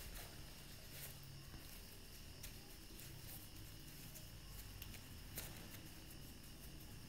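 Faint room tone: a steady low hum and hiss with a few soft clicks and rustles.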